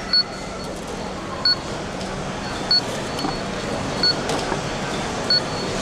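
Supermarket checkout barcode scanner beeping as items are scanned, five short high-pitched beeps about one every 1.3 seconds, over steady background noise.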